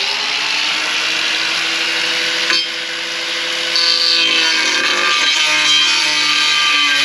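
Power tool with a cutting wheel, likely an angle grinder, running and cutting through a Starlink mount's tubing pole. The motor tone sags slightly as the wheel bites, with a brief dip about two and a half seconds in.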